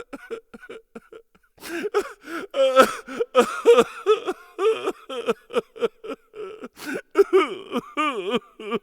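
A human voice making short, choppy non-word vocal sounds, many in quick succession, with the pitch sliding up and down, loudest in the middle and near the end.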